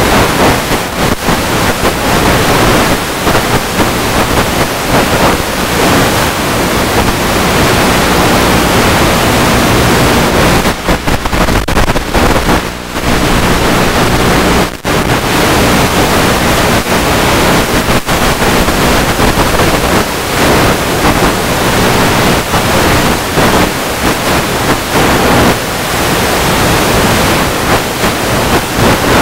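Loud, steady rush of airflow over the onboard camera's microphone on a Multiplex EasyStar 2 RC plane in flight. It briefly drops away twice around the middle.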